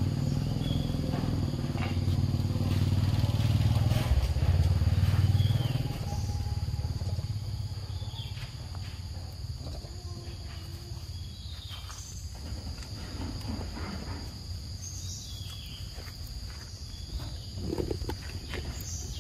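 A motor vehicle's engine running close by, loudest about five seconds in, then fading away. A steady high whine and scattered short high chirps continue over a quieter outdoor background.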